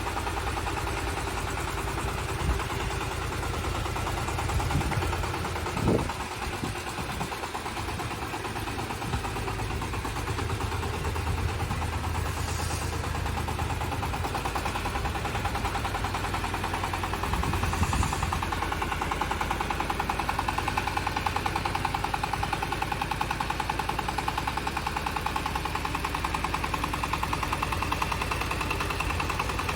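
Engine of a compact crawler tractor running steadily with a fast, even beat, with a couple of louder knocks along the way.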